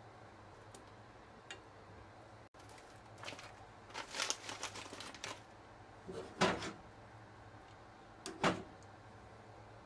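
Kitchen handling at the stove over a low steady hum: a run of small clicks and rattles, then two louder knocks about two seconds apart.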